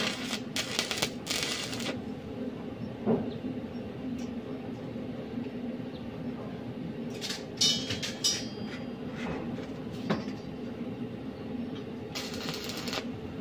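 Cloth rubbing and brushing over a phone microphone in a few short bursts, over a steady low mechanical hum.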